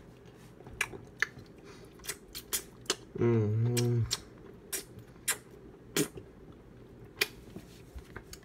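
Mouth sounds of someone tasting a hard Dum-Dum lollipop: scattered sharp clicks and smacks, with one short hummed 'mmm' about three seconds in.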